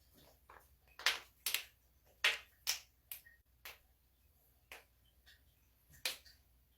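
A series of about ten sharp joint cracks and pops, bunched closely in the first three seconds and then coming further apart.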